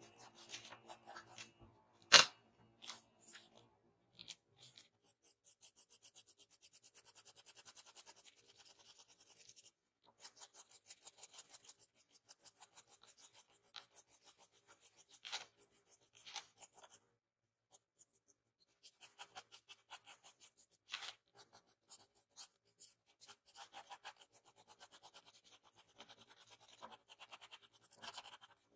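Pencil graphite scratching on drawing paper in quick, short, repeated strokes, as a mechanical pencil flicks in fine hair lines. There is one sharp tap about two seconds in, and a few fainter taps later.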